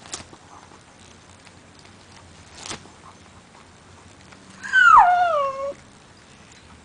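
A dachshund gives one short whine about four and a half seconds in, falling in pitch with a waver and lasting about a second. Before it there is a faint tap and a rustle from its chewing at shredded paper.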